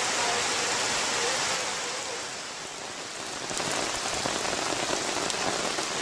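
Heavy rain falling steadily on a surface. It eases a little about two seconds in and comes back stronger about a second later.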